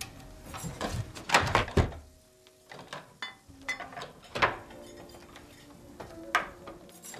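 Wooden high chair being assembled, its parts knocking and clattering together: a loud cluster of knocks about a second and a half in, then single knocks in the middle and near the end.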